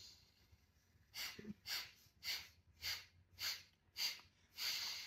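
A man's forceful, snort-like breaths out through the left nostril only, the right nostril held shut with the thumb: six quick, sharp puffs at about two a second, then a longer breath near the end. This is a single-nostril pranayama breathing exercise.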